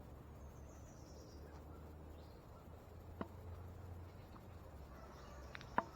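Quiet woodland background: a faint high call falling in pitch about half a second in, a steady low hum, and a few small clicks near the middle and the end.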